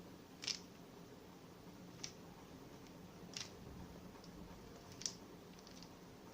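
A Rubik's Cube's plastic layers being turned, giving four faint sharp clicks about a second and a half apart.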